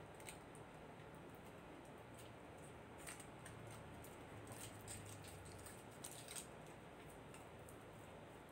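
Faint crinkling of a foil wrapper being peeled off a block of processed cheese by hand, a few short rustles scattered through.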